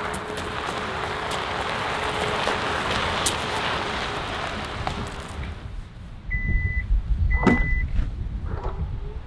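A Kia SUV rolling slowly over gravel, a steady tyre-noise haze with a faint steady hum. Then two short high beeps about a second apart, a sharp click at the second as the power tailgate latch releases, and near the end the tailgate motor starting to whine.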